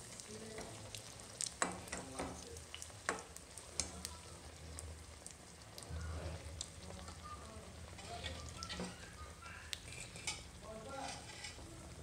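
Poa pitha batter cake sizzling as it fries in hot oil in a blackened iron karahi, with occasional sharp clicks and taps as a perforated metal slotted spoon works the cake in the pan.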